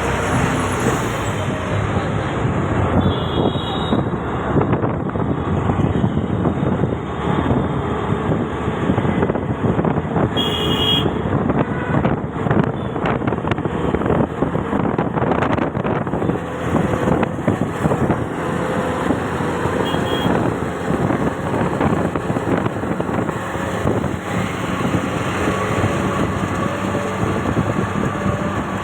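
Steady road traffic noise from a moving vehicle, with a few short horn toots.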